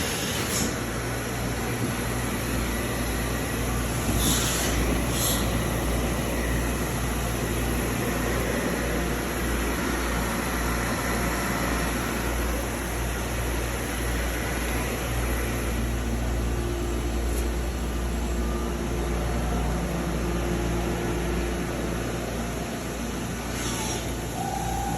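Doosan DNM 200/5AX vertical machining center running: a steady mechanical hum and whir, with short high hissing bursts about four seconds in and again near the end.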